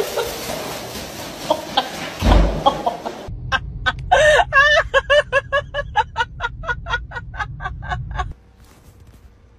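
A fast run of loud chicken-like clucks, about three or four a second, begins a little over three seconds in and stops about five seconds later, over a low engine rumble. Before it there is rough handling noise and a single dull thump.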